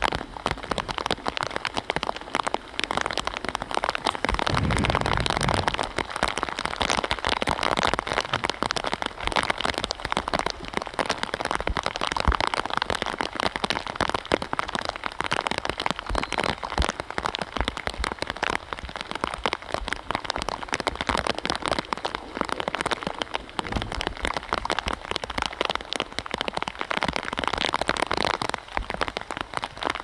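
Steady rain falling, a dense crackle of drops hitting surfaces close to the microphone, with a brief low thump about five seconds in.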